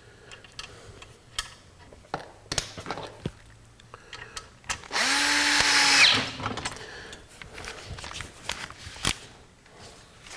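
Power drill running in one burst of about a second to drive a screw back into the scroll saw's housing, its motor pitch falling as it stops. Small clicks and taps of hardware being handled come before and after.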